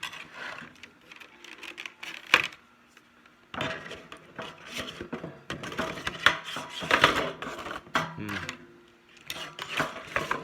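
Handling of a metal Bakugan tin and its plastic insert tray: irregular clatters, clicks and rubbing, with one sharp knock a little over two seconds in and a short lull soon after.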